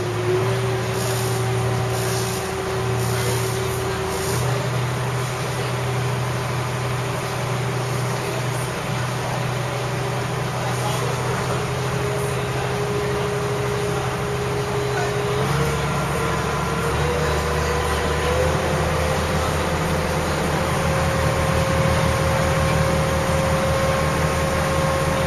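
Water bus engine droning steadily, heard inside the passenger cabin, with a low hum under a higher steady tone. The tone's pitch steps up twice, about 15 and 18 seconds in.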